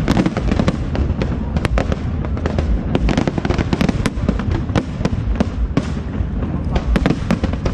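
Fireworks show: aerial shells bursting in a rapid, continuous barrage of sharp cracks, several a second, over a steady low rumble.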